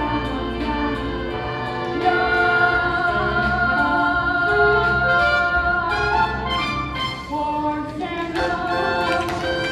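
A stage chorus singing a show tune over instrumental accompaniment, with long held notes, swelling louder about two seconds in.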